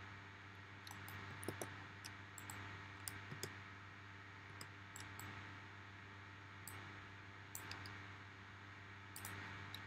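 Faint, irregular computer mouse and keyboard clicks over a low, steady background hum.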